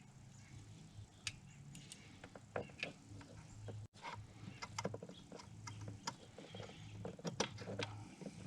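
Scattered clicks and light metallic clinks of hand tools and small parts being handled while working on a snowmobile engine, over a steady low hum.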